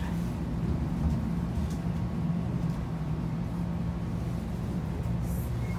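Steady low rumble inside the carriage of a Taiwan Railway EMU700 electric train, with an even hum and no rising or falling inverter whine.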